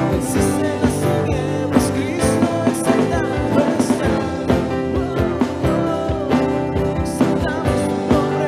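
Live worship band playing a song on keyboard and acoustic guitar with a steady beat, with a voice singing along.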